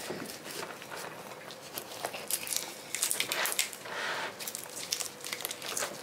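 Knife cutting through the spiky rind of a half-thawed frozen jackfruit, a run of irregular crunching and crackling strokes. The fruit is thawed just enough for the blade to go in easily.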